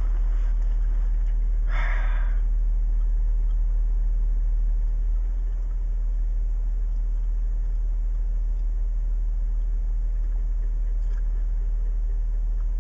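Jeep Wrangler's 3.6-litre V6 idling steadily while the vehicle stands still, heard as a low rumble through the dashcam. A brief hiss sounds about two seconds in.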